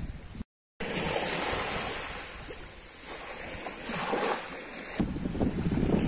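Wind buffeting the microphone over small waves washing onto a sandy beach, with a brief dropout to silence about half a second in.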